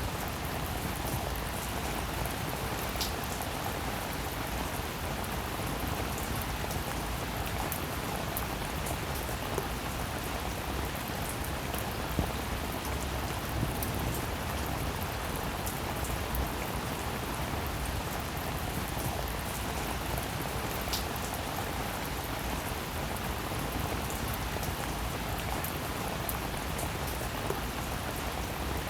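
Steady rainfall: a continuous even hiss with scattered single drops ticking out of it.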